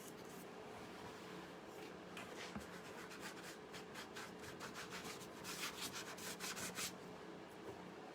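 Faint, quick rubbing strokes of a sponge over freshly painted surface, starting about two seconds in and growing busier near the end, lifting off excess wet black paint.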